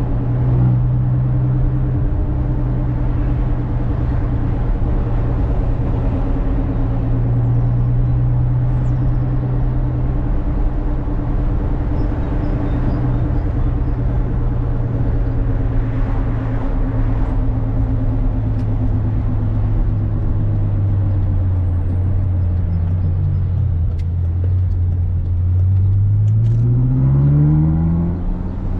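Ferrari California's 4.3-litre V8 engine pulling steadily at a constant pitch, then easing off so the note sinks gradually as the car slows. In the last few seconds the note climbs sharply as the car accelerates.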